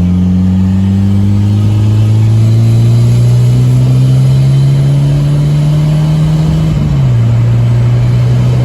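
Volvo B230 inline-four engine on a MicroSquirt ECU running under load, its pitch climbing slowly for several seconds, then dropping suddenly about seven seconds in and holding steady at the lower speed.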